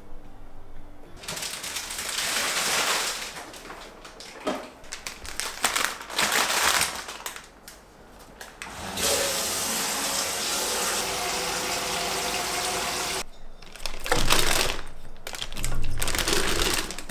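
Kitchen food-preparation sounds: water running from a tap in two spells, the longer lasting about four seconds, with knocks and clatter of utensils in between and near the end.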